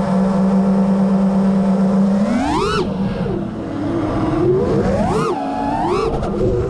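FPV racing quadcopter's 2306 brushless motors and 5-inch three-blade props whining at a steady pitch, then three quick throttle punches, each a sharp rising and falling whine, a little over two seconds in, about five seconds in and again just after.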